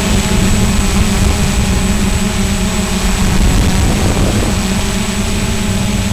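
Small quadcopter drone's electric motors and propellers buzzing steadily in flight, over a rough low rumble of wind.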